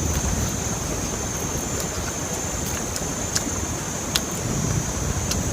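Outdoor ambience: wind rumbling on the microphone under a steady high-pitched drone, with a few sharp clicks scattered through.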